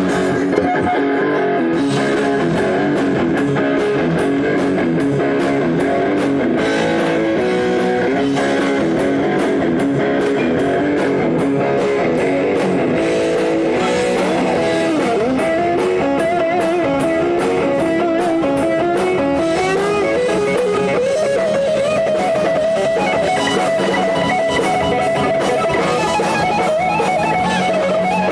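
Rock band playing an instrumental passage live, with strummed guitar and bass under a steady cymbal beat. In the second half an electric guitar lead line comes forward with bending, wavering notes.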